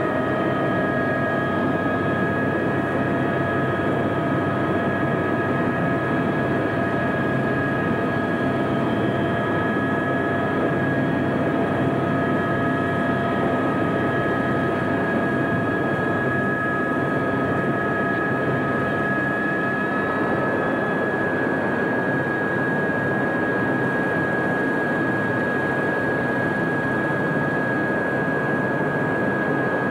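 Aérospatiale AS350B Squirrel helicopter running, heard from inside the cabin: a steady high whine from its Turbomeca Arriel turboshaft engine over a constant rushing noise from the engine and rotor.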